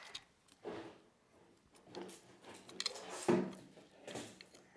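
Hands pulling apart Play-Doh to uncover a small toy car: a few soft scrapes and rubs, the loudest a little past three seconds in.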